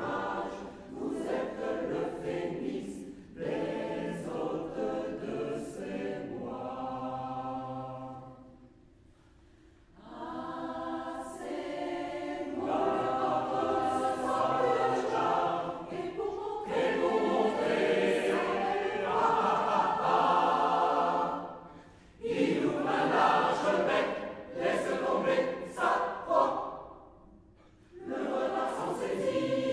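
Amateur choir of about seventy voices singing in French, phrase by phrase, with brief pauses between sections about a third of the way in and twice near the end.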